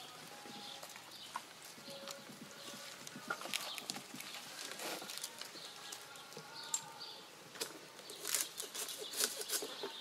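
Outdoor ambience with faint, scattered bird calls and irregular knocks and rustles, the knocks more frequent in the second half.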